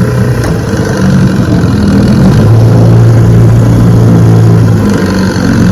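1968 Johnson 6 hp two-stroke outboard motor running while being checked in reverse gear; its engine note changes and grows a little louder about two and a half seconds in.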